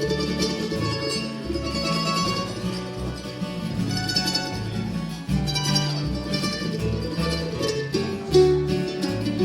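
Instrumental break of a bluegrass song: acoustic guitar and mandolin picking over an upright bass.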